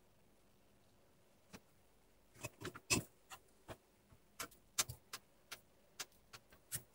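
Side cutters snipping off the excess leads of freshly soldered transistors on a circuit board: a string of sharp, irregularly spaced clicks starting about a second and a half in, the loudest around three seconds in.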